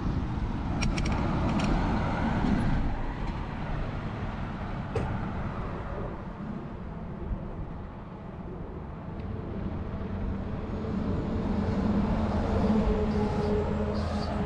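Wind rumble and rolling noise from riding an e-bike, picked up by a bike-mounted action camera. A low hum swells in over the last few seconds.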